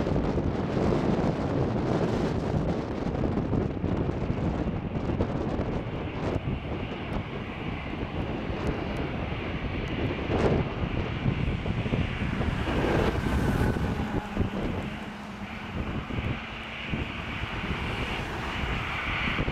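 Airbus A320 jet engines running continuously as the airliner comes in on short final and rolls out along the runway after landing, heard as a steady rushing noise. A thin, higher whine comes in over the rushing during the second half.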